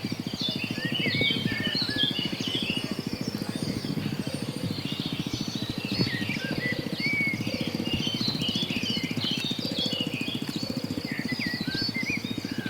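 Many small birds chirping and twittering, with a steady, fast low pulsing underneath.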